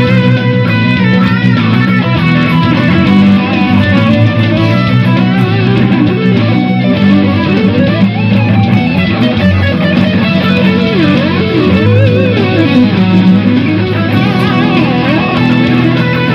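Electric guitar playing a melodic lead with bends and slides over steady bass notes.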